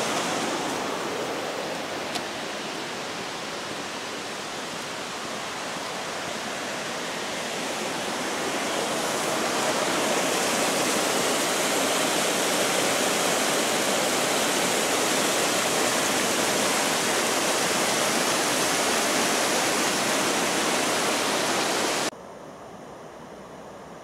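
White water of a clear mountain river in its upper course rushing over rocks below a bridge, a steady rush that grows louder about halfway through. Near the end it cuts off sharply to a much fainter steady hiss.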